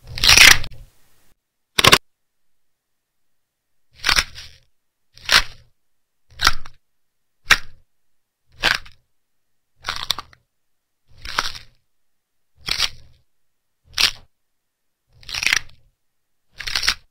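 A series of short crackling noise bursts, thirteen in all, with dead silence between them. The first is the loudest; after a gap the rest come roughly one every second and a quarter.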